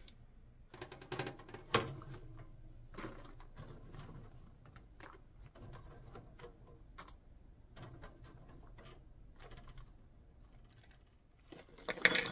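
Irregular clicks and knocks of kitchen work, utensils and things being set down on hard surfaces, with a louder clatter near the end.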